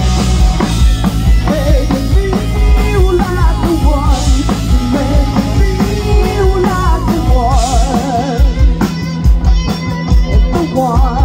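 Live rock band playing: electric guitars, bass and drum kit, with a woman singing. The cymbals and drums get busier near the end.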